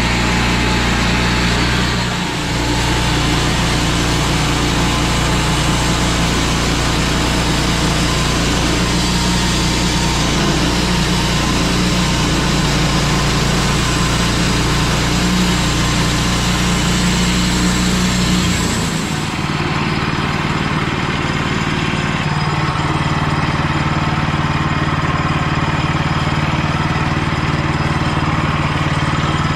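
Small engine of a bandsaw mill running steadily at a constant speed. Just past two-thirds of the way in, the sound changes abruptly and the higher hiss drops away.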